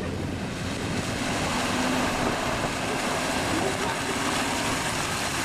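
Off-road 4x4 engine running under a steady rush of water as the vehicle fords a fast-flowing river.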